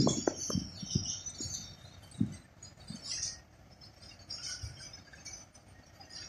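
Small birds chirping, with a few short low knocks and clicks in the first three seconds.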